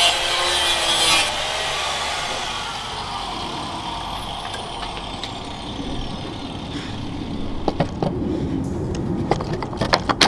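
Power tool cutting, which stops abruptly about a second in, followed by a fading whine. Later comes a string of light metallic clicks and clinks from tools and coilover parts being handled.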